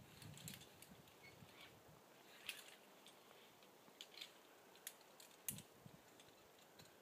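Near silence with a few faint, sharp clicks and ticks scattered at uneven intervals.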